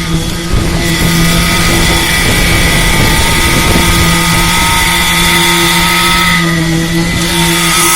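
Engine of concrete-pouring machinery running steadily under load: a loud, even drone with a higher whine above it.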